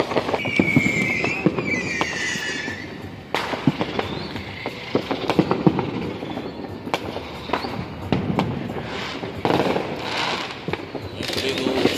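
Fireworks going off: a string of sharp bangs and crackles, with a high whistle that wavers and slides down in pitch over the first few seconds.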